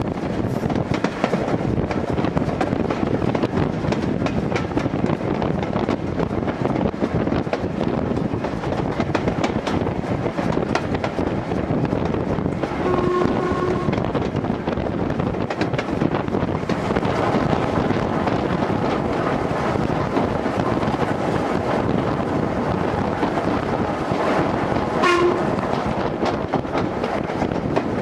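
Steam locomotive running along the line, with the steady running noise of wheels and track heard from right behind the engine. Its whistle sounds for about a second roughly halfway through, and again more briefly near the end.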